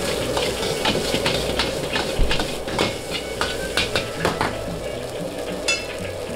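Fried rice being stir-fried in a wok: a metal utensil clanks and scrapes against the wok in quick irregular knocks over a steady sizzle. A short ringing clang comes near the end.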